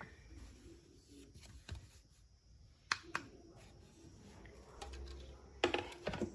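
Handling noise: a few sharp clicks and knocks, two close together about three seconds in and a louder cluster near the end, over a faint low hum.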